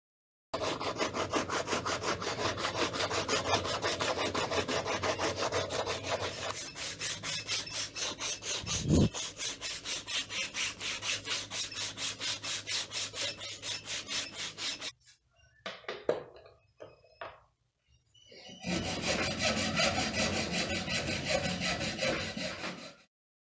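Quick, even back-and-forth strokes of hand abrasive work on a steel machete blade and its wooden handle, several strokes a second. There is a low thump about nine seconds in. The strokes stop for a few seconds near the middle, then resume and stop near the end.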